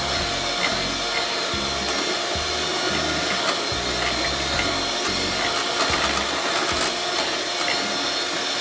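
Electric mixer running steadily, its beaters whipping cream toward stiff peaks, with a constant whine over the motor noise.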